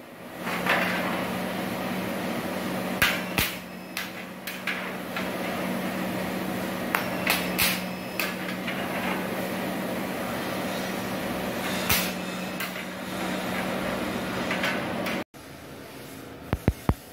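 Thyristor resistance spot welder (MultiPro SWP 50 T-DS) humming steadily through a long weld cycle with its timer set to 99 while its gun clamps a steel sheet, with sharp pops now and then. The hum stops abruptly near the end, followed by a few light clicks.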